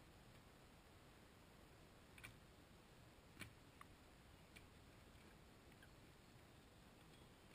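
Near silence, with four faint clicks through the middle of the stretch: a spade cutting into the soil of a ditch.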